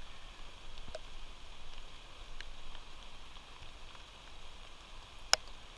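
Light rain hissing steadily, with a few faint ticks and one sharper click near the end.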